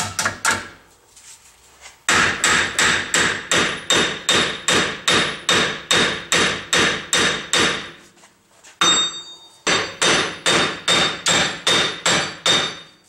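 Hammer blows on the rusted wheel hub bearing assembly of a 2007 Dodge Nitro, about three strikes a second in steady runs, knocking the seized hub loose from its mount. The runs pause briefly about a second in and again around eight seconds, and the blows near the end ring with a metallic tone.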